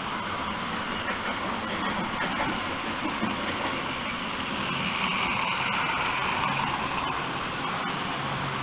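Model train running on its track: a steady motor hum and wheel rumble with a few faint clicks, growing a little louder and brighter about halfway through.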